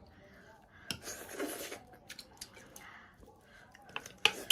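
Small clicks and light scraping of tableware during a meal, with one sharp click near the end.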